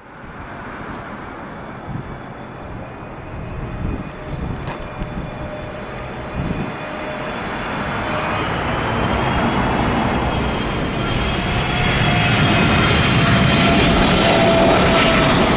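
Jet airliner on final approach, its engine noise building steadily louder as it comes in low overhead. A high engine whine with several pitches rises out of the rushing noise in the second half. Wind buffets the microphone in the first half.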